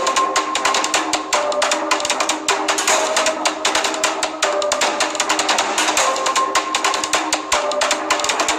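Background music: a rapid, driving drum beat with held notes changing every second or so.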